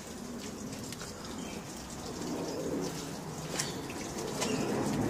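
Dove cooing faintly in the background, with a couple of light clicks in the second half.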